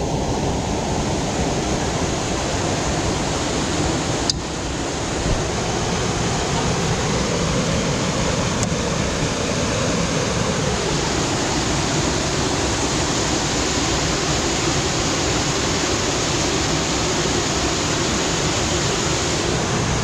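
Steady rush of flowing water, a river or waterfall close to the microphone, with one sharp click about four seconds in.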